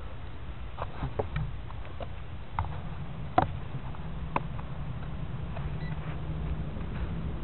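Clicks and knocks from a parked drone being handled, picked up by the camera mounted under it. The loudest click comes about three and a half seconds in. A steady low rumble runs underneath.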